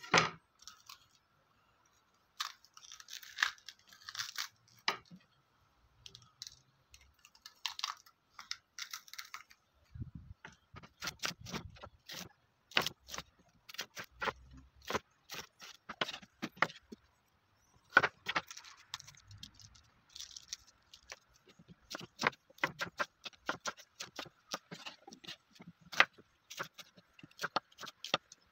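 Chef's knife chopping bell peppers on a bamboo cutting board: sharp taps of the blade on the wood, sparse at first and then in quick runs from about ten seconds in, with crisp tearing and rustling as the peppers are pulled open and seeded.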